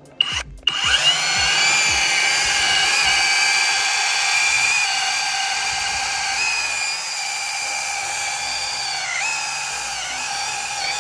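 Flex 24-volt brushless rotary hammer drill boring a bolt hole into a wooden timber band. The motor whines up to speed in the first second, then runs steadily under load, its pitch sagging briefly twice in the second half as the bit bites.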